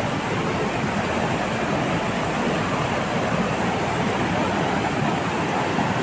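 Mountain river rapids rushing over boulders: a steady, even rush of white water.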